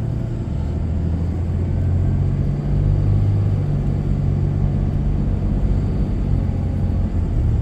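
Low, steady engine rumble of a truck heard from inside the cab, with a steady low hum that shifts slightly in pitch about three seconds in.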